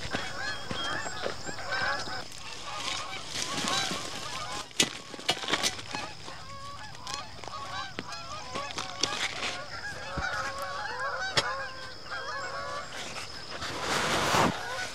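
A flock of birds calling, many short overlapping calls, with a few sharp knocks now and then.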